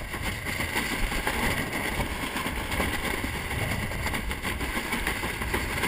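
Steady wind noise on the microphone, with water rushing and splashing along the hull of a heeled-over 470 sailing dinghy moving fast through choppy water.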